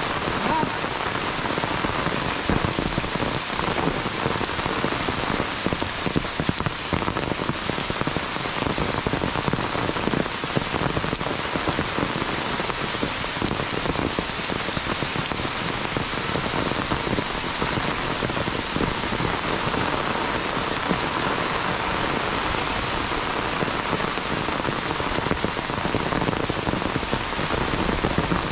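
Heavy monsoon rain falling steadily: a dense, even hiss with many separate close drop hits.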